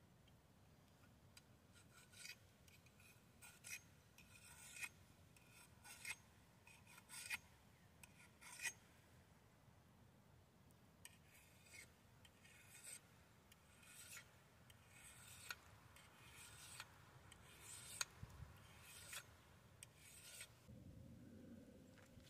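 Faint, regular rasping strokes, about one a second, in two runs with a short pause between them, like a blade or tool being scraped or filed.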